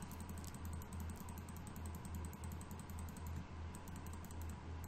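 Rapid, evenly spaced computer clicks, several a second, from stepping a video frame by frame, over a low steady hum.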